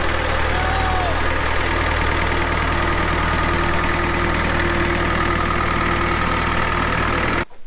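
Farm tractor's diesel engine idling steadily, cutting off abruptly near the end.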